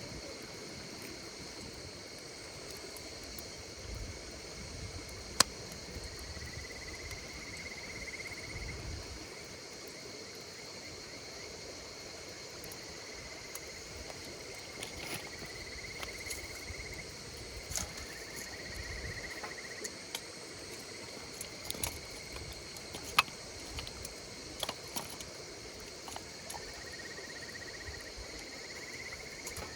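Insects calling in a steady high-pitched chorus, with a separate trill repeating every few seconds, over the sharp pops and crackles of a wood campfire. Two pops, one about five seconds in and one near the three-quarter mark, stand out as the loudest sounds.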